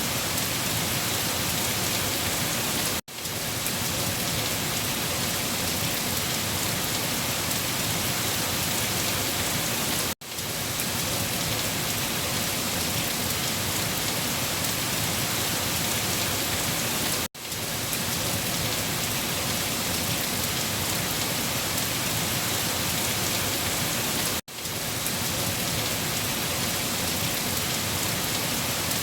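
Heavy rain falling on leaves, a dense steady patter. It cuts out for an instant and swells back in four times, about seven seconds apart.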